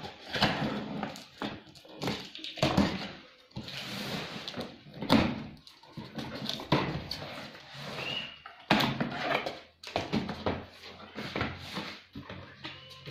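Irregular knocks, thuds and rustling as a boxed fan room heater and its packaging are handled and unpacked.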